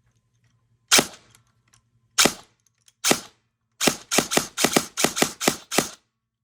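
G&G Combat Machine airsoft electric gun with a Gate Titan controller and speed trigger firing: three single shots about a second apart, then a quick string of about nine shots at roughly four or five a second.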